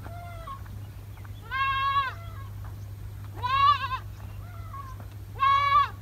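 Young goat bleating loudly three times, about two seconds apart, each bleat about half a second long, with fainter, shorter calls between them.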